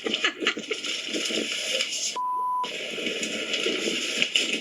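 A censor bleep: a single steady tone of about 1 kHz lasting about half a second, with the other audio muted beneath it, about two seconds in, over a dense noisy background.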